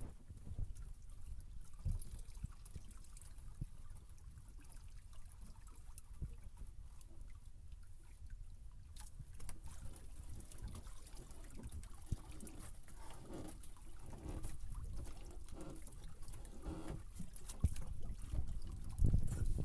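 Water trickling and lapping around a small fishing boat, over a steady low rumble, with more movement in the water in the second half.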